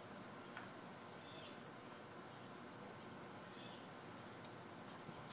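Steady high-pitched insect drone, with one faint tap about half a second in.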